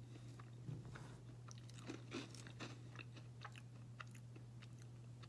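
Dry Apple Jacks cereal crunching as it is chewed with the mouth closed: a quick, uneven run of faint crisp crunches over a low steady hum.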